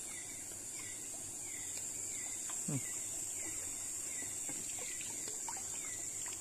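Steady high-pitched insect chorus of a tropical night, with a short falling chirp repeating about twice a second. There are light water splashes as a hand net is dipped and lifted, and one short low grunt-like sound a bit under halfway.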